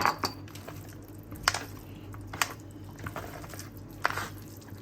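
Kitchenware being handled: a few sharp clicks and knocks, about five, spread over a few seconds, with soft squishy handling between them, over a low steady hum.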